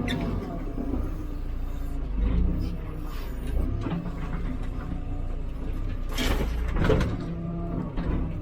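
Hidromek 102B backhoe loader's diesel engine running steadily under working load, with a short clatter about six seconds in.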